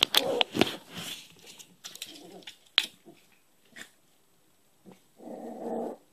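Puppy making short calls, with sharp knocks and scuffling in the first second and one longer call about five seconds in.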